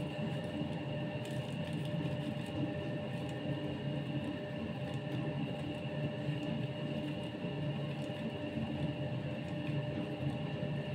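A steady machine hum: a low rumble with several constant whining tones above it, unchanging throughout.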